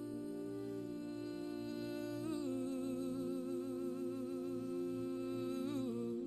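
Meditation music: a voice humming long held notes with a slight waver over a steady low drone. The note steps down about two seconds in and again near the end.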